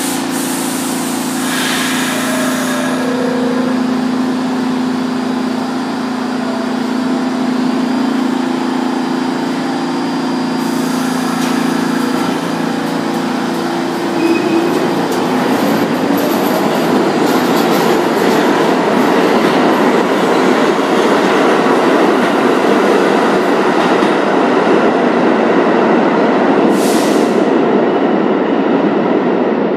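New York City Subway R46 train standing at the platform with a steady electric hum. About halfway through it pulls out, and a louder, steady rumble of wheels on the rails takes over. A brief hiss comes near the end.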